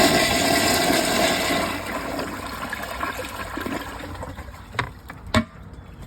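Mansfield ProFit toilet flushing from a mid-height tank: a rush of water loudest at first, then steadily tapering off. Two sharp clicks near the end.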